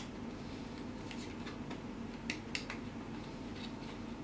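Scattered light clicks and taps of small plastic parts being handled and fitted on a micro RC car, over a steady low hum.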